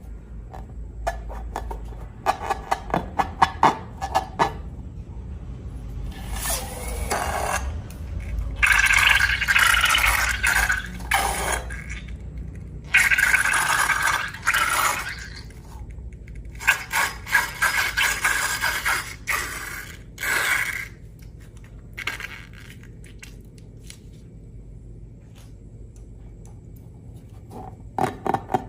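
Slime-making handling sounds: scraping and mixing in three bursts of a few seconds each, with quick clicks and taps near the start and again near the end.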